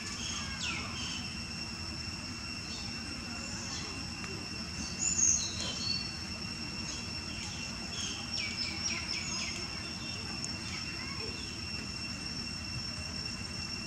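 Outdoor ambience: a steady insect drone holding two high pitches, with scattered bird chirps, the loudest about five seconds in, over a low background rumble.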